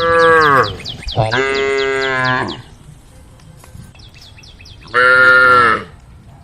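Cattle mooing three times: a short call that falls in pitch at the start, a longer one of about a second, and another short one near the end. Behind them, a bird chirps rapidly and evenly.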